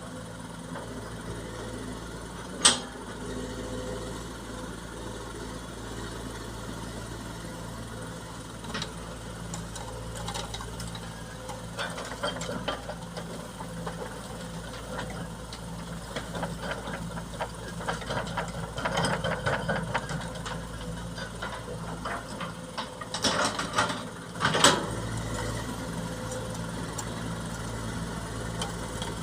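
Diesel engine of heavy machinery running steadily, with patches of clanking and rattling and two sharp loud knocks, one a few seconds in and one a few seconds before the end.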